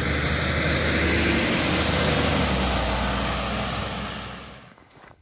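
Fire engine driving past on a wet, slushy road: its engine and tyre noise swell as it passes close, then fade away from about four seconds in as it pulls off down the street. No siren.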